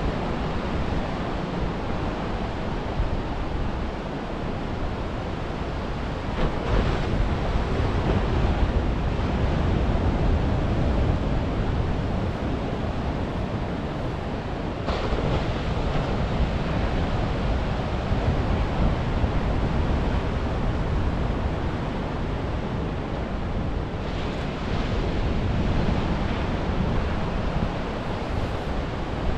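Ocean surf breaking on a sandy beach: a continuous rush of waves that swells louder twice, about a quarter of the way in and again near the end.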